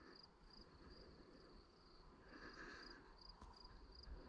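Near silence with a cricket chirping faintly and steadily, about two short chirps a second.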